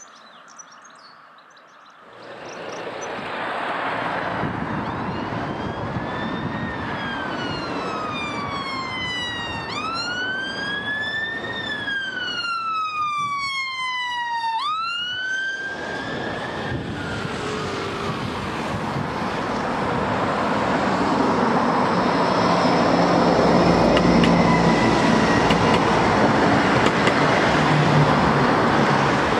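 Emergency vehicle siren sounding a slow wail over traffic noise, each rise and fall taking about five seconds. The siren stops about 16 seconds in, and the traffic noise then swells louder.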